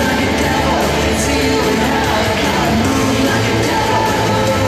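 Loud music with a steady beat.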